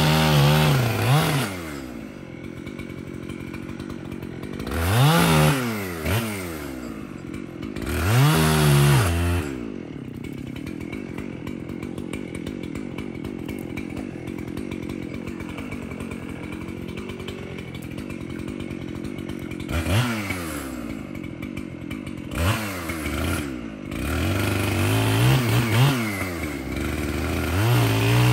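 Gasoline chainsaw revved up about six times, each time dropping back to a steady idle, with the longest run at high speed near the end.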